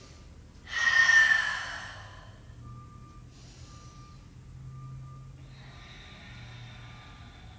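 A person's loud, forceful exhale about a second in, with a softer breath near the end. A faint beep repeats about once a second underneath.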